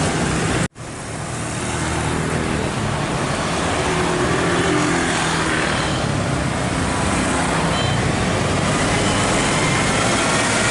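Road traffic noise with a heavy vehicle's engine running low under it. The sound cuts out for an instant under a second in, then fades back up.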